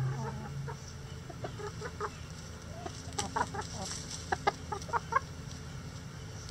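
Backyard hens clucking as they forage, scattered short clucks that thicken into a quick run of sharp, short clucks past the middle.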